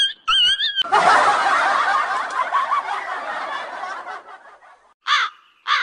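A cat's drawn-out yowl is cut off just under a second in by a sudden burst of a group laughing, which fades away over about three seconds. Near the end come two short cries.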